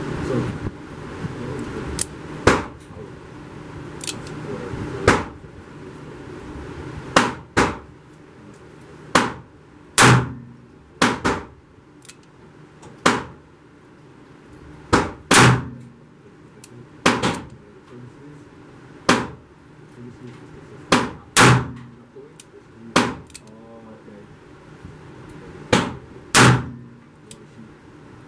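A string of revolver shots, .38 Special rounds fired from a Smith & Wesson M586: about twenty sharp reports at irregular intervals of one to two seconds, several in quick pairs, each with a short ringing tail.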